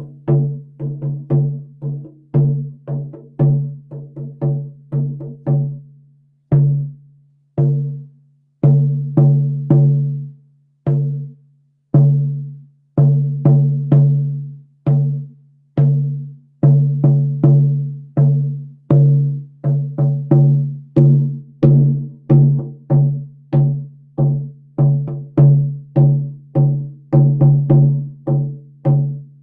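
Hand drum with a birch bark frame and deer-hide head, struck by hand in a loose beat of about two strokes a second, with a few short gaps. Each stroke gives a low tone that rings briefly.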